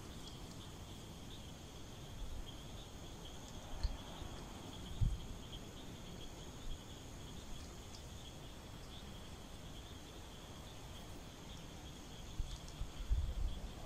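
Insects chirring steadily in a high, fast-pulsing drone, with a few low thumps about four and five seconds in and a cluster of them near the end.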